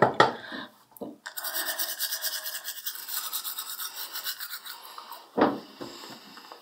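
Manual toothbrush scrubbing teeth in quick back-and-forth strokes, a fast scratchy rasping. Short knocks come in the first second, and a single loud knock about five and a half seconds in.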